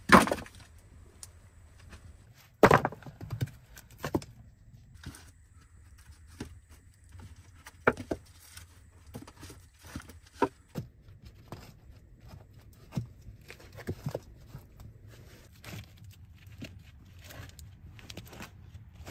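Sawn wooden log rounds dropped onto the earth floor of a log dugout: a heavy thud right at the start and another about three seconds in. After that come lighter, scattered wooden knocks as the rounds are set down and stacked against one another.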